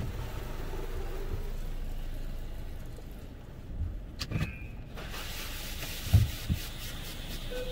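Automatic touchless car wash heard from inside the car's cabin: a steady low rumble, then from about five seconds in the hiss of water spray hitting the car, with a click and a few dull thumps.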